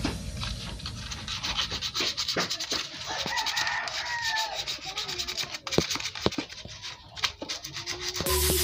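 Rapid rubbing strokes of a hand polishing the aluminium crankcase cover of a Honda TMX 125 Alpha motorcycle engine, a quick scratchy scrubbing broken by a few sharper ticks.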